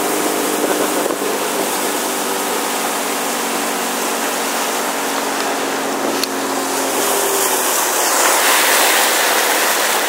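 Motorboat engine running at a steady speed under a loud rush of water along the hull. About seven seconds in the engine hum fades and the hiss of splashing water grows.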